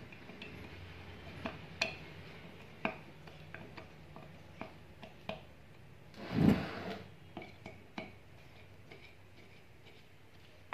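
A screwdriver turning the screws on the rim of a ceiling fan's cast metal motor body: scattered small metal clicks and scrapes, with one louder, longer rub a little past halfway.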